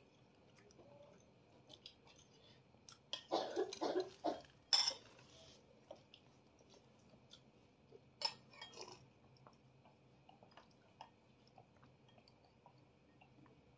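Someone eating Indonesian beef meatballs and noodles from a hand-held bowl: chewing, with small scattered clinks of the utensil against the bowl. A louder stretch comes about three to five seconds in, ending in a sharp clink, and another brief louder clatter comes about eight seconds in.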